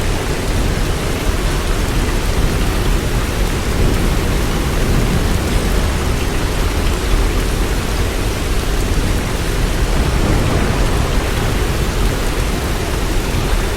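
Heavy hailstorm: hail and rain pelting down hard and without let-up, a dense, steady noise of countless impacts.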